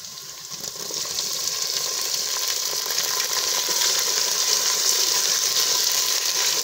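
Chopped tomatoes and green chillies sizzling as they hit hot desi ghee with fried onions. The sizzle swells about a second in, then stays loud and steady.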